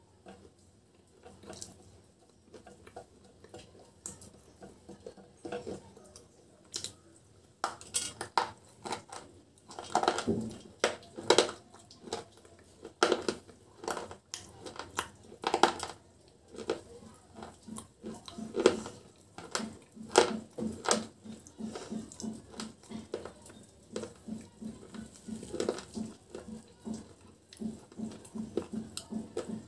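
Close-miked crunching and chewing of hard, brittle white chips coated in black paste. Sharp, crisp crunches come thick through the middle, then settle into a quick, even chewing rhythm near the end.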